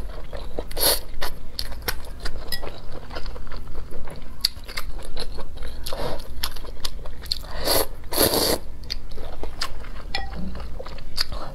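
Eating sounds: glass noodles slurped out of chili-oil broth in a few noisy sucks, about a second in, around six seconds and around eight seconds, with crunchy biting and wet chewing in between.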